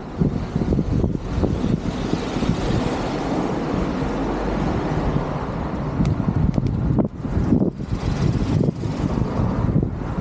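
Road traffic passing on a street: a vehicle's tyre and engine noise swells over the first few seconds and fades, and gusty wind then buffets the microphone.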